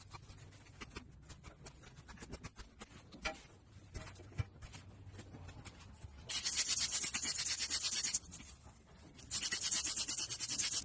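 Hoof horn being cut and scraped out of a hole in an injured horse's hoof: faint scattered scraping clicks, then two loud stretches of continuous rasping against the hoof, about two seconds and a second and a half long.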